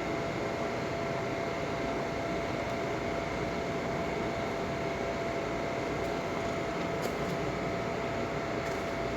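Steady machine hum with a constant high whine over an even hiss.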